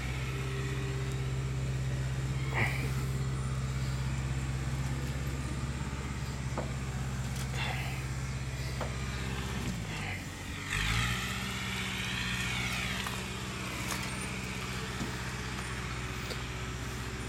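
A motor vehicle engine running steadily at low speed. About ten seconds in its note drops and briefly fades, then picks back up, with a few faint clicks over it.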